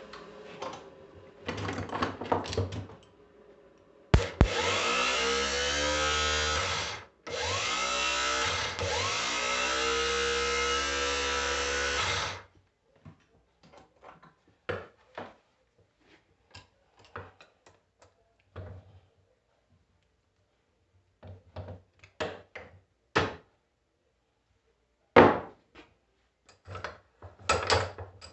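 A hand power tool such as an electric drill runs in two bursts, about three and five seconds long, its pitch wavering under load. Before and after come scattered clicks and knocks of tools and metal parts being handled on the bench.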